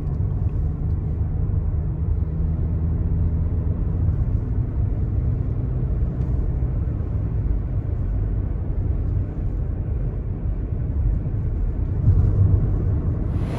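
Steady low engine rumble with a faint hum, holding an even level throughout.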